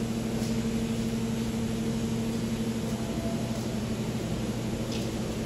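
Steady electrical hum over a low, even rumble in a subway station, with two faint ticks. No train is moving.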